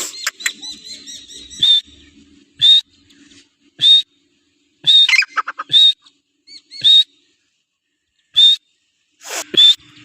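Teetar (francolin) calling: a string of short, sharp, whistle-like notes repeated about once a second.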